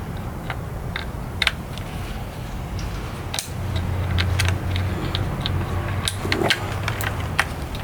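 Scattered light clicks and rattles of plastic wiring-harness connectors being handled and pushed into place, over a steady low hum.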